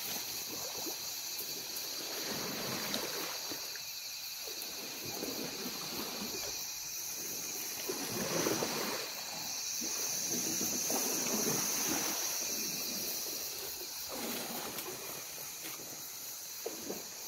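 Tall dry grass swishing and rustling in irregular surges every couple of seconds as an elephant pushes through it, loudest in the middle. Underneath runs a steady high-pitched chorus of insects.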